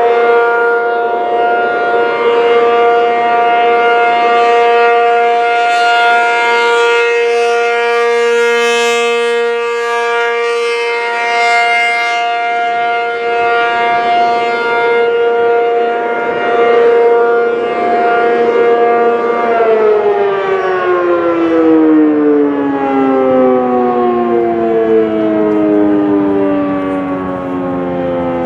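ACA P-50 outdoor warning siren sounding a loud steady tone, the steady alert signal, swelling and fading in loudness. About two-thirds of the way through the pitch begins to fall steadily as the siren winds down.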